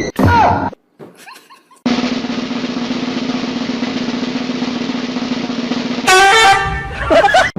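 Snare drum roll sound effect lasting about four seconds, starting about two seconds in, then loud pitched sounds near the end.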